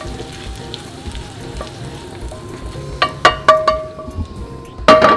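Zucchini sizzling in butter in a frying pan, with a utensil knocking against the pan a few times about three seconds in and once more loudly near the end, each knock ringing briefly.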